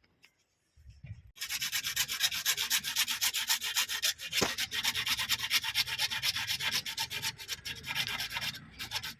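Rapid back-and-forth rubbing or scraping strokes by hand, like sanding or filing, starting about a second and a half in and running steadily until shortly before the end.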